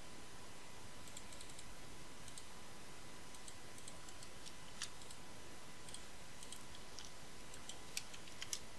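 Faint computer mouse clicks, some single and some in quick clusters, spaced about a second apart, over a faint steady hiss.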